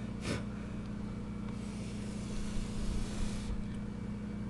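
Steady low hum, with a light click just after the start and a soft hiss from about one and a half to three and a half seconds in.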